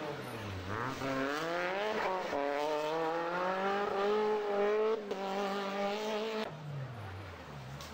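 Rally car engine accelerating hard. Its pitch climbs through a gear change a little after two seconds in and holds high, then falls away near the end.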